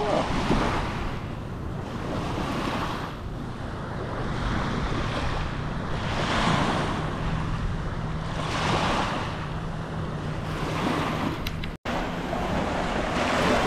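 Small gulf waves washing up onto shelly sand at the water's edge, the wash swelling and fading every couple of seconds, with wind buffeting the microphone. A faint steady low hum runs under the middle of it, and the sound cuts out for an instant near the end.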